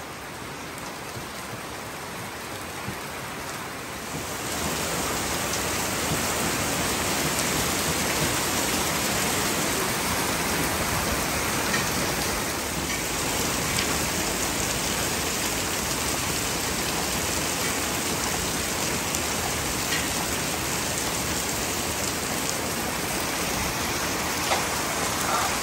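Heavy rain falling on a roof and streaming off the eaves, a steady hiss that gets louder about four seconds in.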